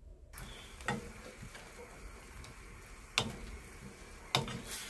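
Wooden spatula stirring carrots and chicken in a wok over soft frying sizzle, with a few knocks of the spatula against the pan, the sharpest about three seconds in and another shortly before the end.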